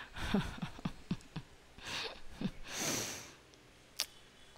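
A woman gives a few short, soft breathy chuckles, then lets out a long sigh. There is one sharp click near the end.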